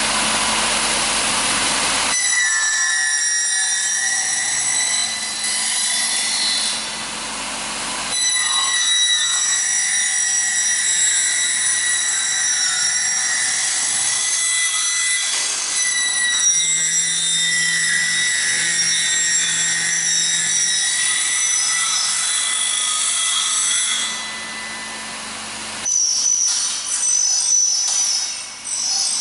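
Aluminium profile end milling machine at work: a rushing hiss for the first two seconds, then its cutters spin with a steady high whine as they mill the ends of the clamped aluminium profiles. The cutting grows louder about eight seconds in, drops away about four seconds before the end, and then comes back unevenly.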